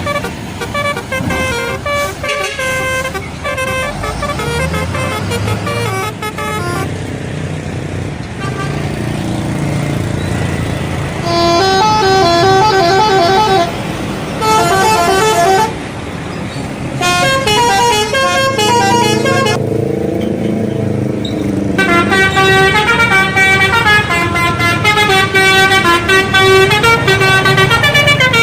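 Indonesian buses sounding telolet horns: multi-tone musical horns play short melodic phrases of stepped notes, several sequences one after another, over bus engine noise. The horns are loudest near the end.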